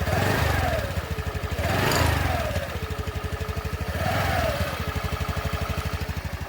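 TVS Jupiter BS6 scooter's single-cylinder engine idling and revved three times, each rev rising and falling back to idle, about two seconds apart. It runs with no fuel-pump noise, its fuel pump freshly replaced.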